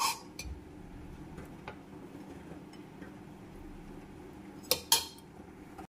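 Steel serving spoon knocking and clinking against a pressure cooker's metal pot while rice is scooped out, a few light clinks and then two sharp clinks close together near the end. The sound cuts off suddenly just before the end.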